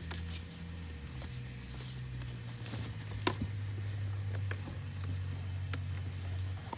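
Hands handling plastic interior trim and a light's wiring connector: light rustling with a few sharp plastic clicks, over a steady low hum.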